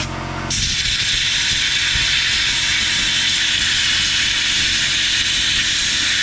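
Compressed-air blow gun blasting a steady, loud hiss, starting about half a second in, blowing dried dirt out of the spark plug wells. The air compressor hums steadily underneath.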